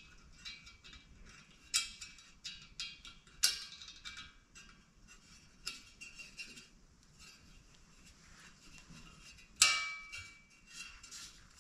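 Light metallic clicks and clinks as an aluminum blower fan blade is worked onto its motor shaft and its set screw seated, the blade and hub knocking against the motor and its wire guard. Scattered ticks throughout, with sharper clinks about two and three and a half seconds in and the loudest one near the end.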